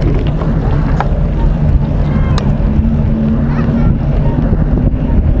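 Steady low wind rumble buffeting the microphone while running at tempo pace, with a few faint clicks.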